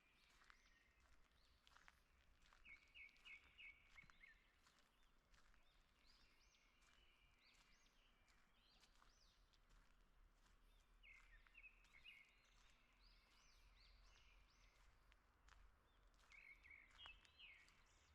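Faint birdsong from small songbirds: short runs of quick repeated chirps a few times, with arching whistled notes in between.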